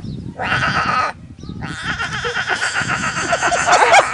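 An animal calling: a short call, a brief pause, then a long drawn-out call that breaks into quick wavering cries near the end.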